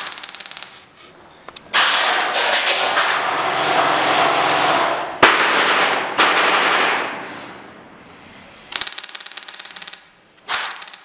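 Automatic airsoft guns firing in bursts of rapid, even shots: a short burst near the start, a long stretch of heavy fire through the middle with one sharp crack, and another quick burst near the end.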